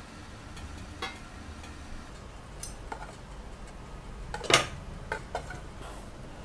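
Stainless steel tongs clinking and tapping against a steel steamer plate and serving plate as steamed rice-flour dumplings are lifted out: a handful of scattered light knocks, the sharpest about four and a half seconds in, over faint steady background noise.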